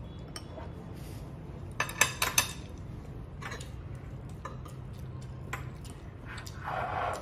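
Metal eating utensils clicking against a dish, with a quick cluster of sharp clicks about two seconds in and scattered lighter clicks after. A softer noisy burst comes near the end, over a low steady hum.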